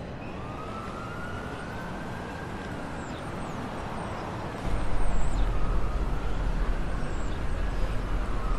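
Hip-hop track intro: a siren-like wailing tone slowly rises and falls over a hiss, and a heavy deep bass comes in about halfway through.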